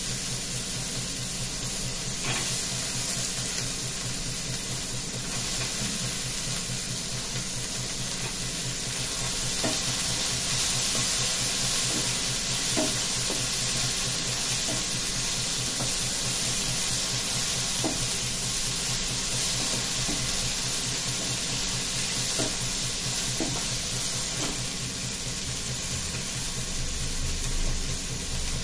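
Sprouted moong beans and chickpeas sizzling in hot oil with fried onions in a nonstick frying pan, stirred with a wooden spatula that clicks against the pan now and then.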